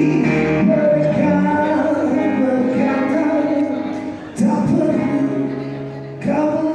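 A Malay pop ballad sung over instrumental accompaniment. The singer holds long notes, and new phrases begin about four and six seconds in.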